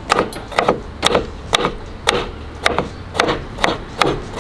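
Kitchen knife slicing gherkins on a wooden chopping board: the blade knocks on the wood with each cut, in an even rhythm of about two cuts a second.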